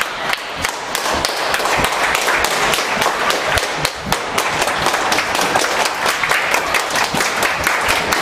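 A group of people clapping their hands, many quick claps overlapping, with crowd voices mixed in.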